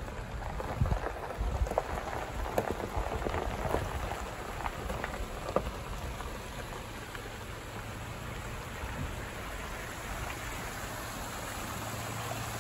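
A vehicle's tyres rolling slowly over gravel and wet rock through a shallow creek crossing, with a crackle of small stones and water that is busiest in the first half, over a steady low engine and road hum.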